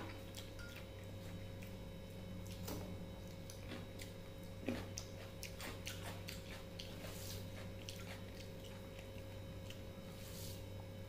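Fingers mixing and mashing rice with fish curry on a plate: faint soft squishes and scattered light clicks against the plate, over a steady low hum.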